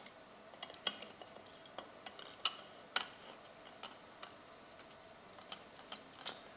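A T-handle hex key turning a chainring bolt into a ROTOR crank, making a scatter of light, irregular metallic clicks and taps as the key and the chainring are handled.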